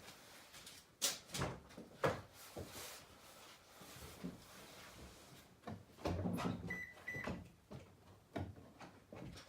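A car that won't start, clicking instead of cranking as the key is turned, with two short high beeps about seven seconds in. The clicking persists even with a fully charged battery and sanded battery and starter connections.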